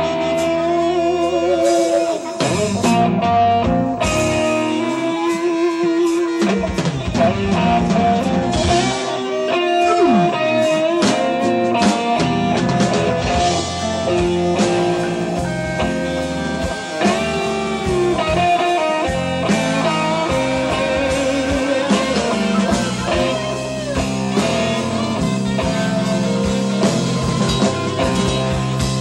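Live blues band playing: electric guitar and drum kit, with a harmonica played into a microphone wailing over them.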